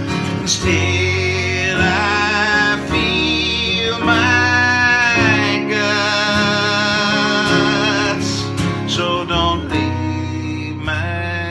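A man singing a country-pop ballad over guitar accompaniment, holding long notes with vibrato, one of them sliding down near the middle.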